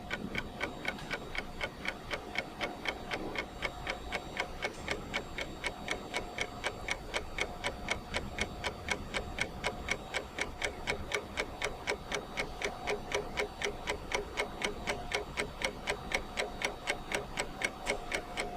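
Steady, rapid ticking like a clock or timer, about four to five ticks a second, over a faint steady tone.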